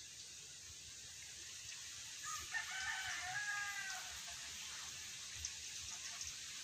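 A rooster crowing once, a single drawn-out call lasting under two seconds, beginning about two seconds in.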